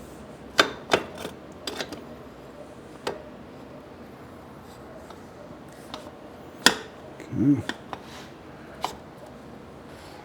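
Scattered sharp metal clicks and knocks, about half a dozen, from motorcycle parts being handled and fitted while the rear wheel and brake caliper are put back on.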